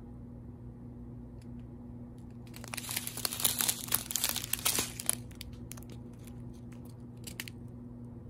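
Small plastic bags of diamond-painting drills crinkling as they are handled. There is a dense burst of crinkling for about two and a half seconds in the middle, with a few light clicks and rustles before and after, over a faint steady low hum.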